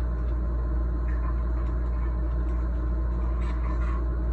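A steady low mechanical hum, with a few faint light clicks from small parts being handled.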